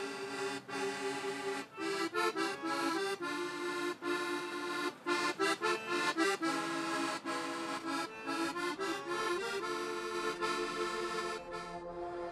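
Instrumental background music: a melody of short, quickly changing notes over held tones. Near the end the melody stops and a softer held chord carries on.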